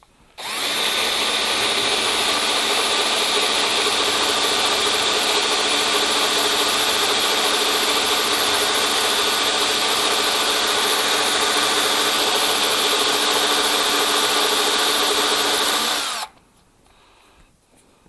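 Power drill running steadily as a three-quarter-inch bit bores a lock hole through the cabinet wall. It starts about half a second in and stops suddenly near the end.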